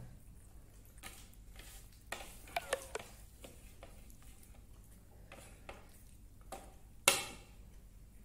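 Quiet, scattered taps and clicks of eating at a table, with one sharp, louder knock about seven seconds in.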